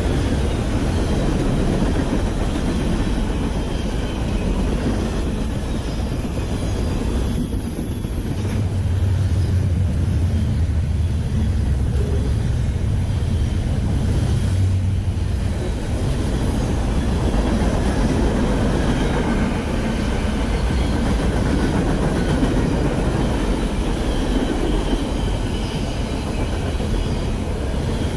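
Freight train cars (tank cars, then gondolas, then container well cars) rolling past close by at steady speed: a continuous loud noise of steel wheels running on the rails.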